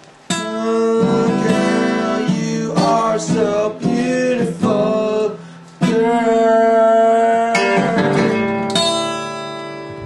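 A man singing over a strummed acoustic guitar, holding one long note about six seconds in, then a few strummed chords that ring and fade near the end.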